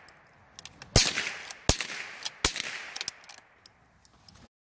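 Henry lever-action .22 LR rifle fired rapidly: three sharp shots about three-quarters of a second apart, with lighter clicks between them. The sound cuts off abruptly near the end.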